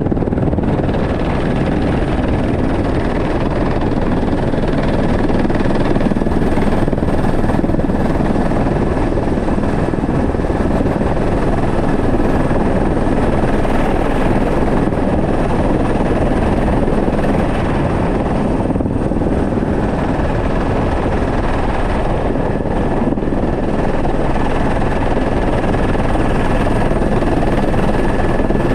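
Helicopter in flight heard from inside its cabin: a loud, steady din of rotor and engine with a faint high whine over it.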